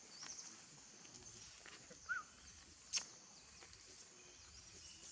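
Faint animal calls against a steady high hiss: a few brief chirps, one short squeak about two seconds in, and a sharp click about three seconds in.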